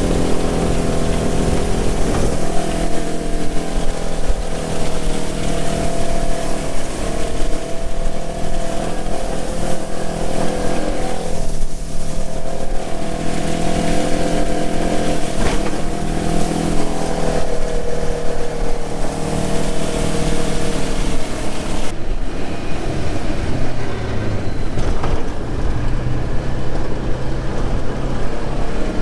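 Heavy farm diesel engine of harvest machinery running steadily under load, its pitch briefly dipping and recovering about halfway through and shifting again near the end.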